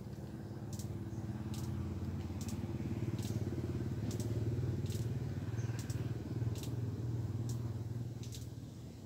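A small engine running, swelling in the middle and fading near the end as it passes, with faint high ticks repeating about once a second.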